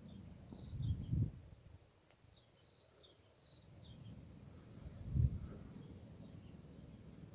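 Steady high-pitched drone of insects in the forest, with a few faint short chirps. Low muffled bumps on the microphone about a second in and again about five seconds in are the loudest sounds.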